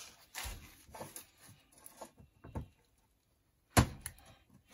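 Soft rubbing and handling noises of gloved hands working a rubber CV axle boot on the axle shaft, then a single sharp knock about four seconds in.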